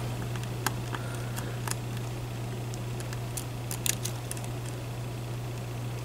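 Faint scattered clicks and ticks of a lock pick working the pins of a Medeco Biaxial lock cylinder, with a small cluster of ticks a little before four seconds in, over a steady low hum.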